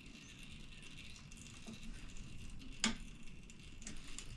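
Faint metal-on-metal tool sounds from tightening the bolt on a dirt bike's shift lever, with one sharp metallic click about three seconds in.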